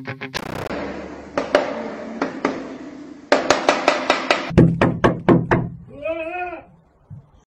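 Rapid knocking on window glass, about four or five sharp knocks a second, as a bird pecks at the pane. Near the end comes a short wavering cry from a person's voice.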